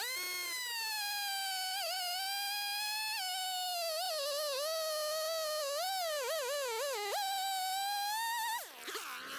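Husqvarna 450 Rancher two-stroke chainsaw running at high revs while cutting a log. Its whine sags and wavers under load through the middle, jumps back up about seven seconds in as the chain frees, and dips and rises again near the end.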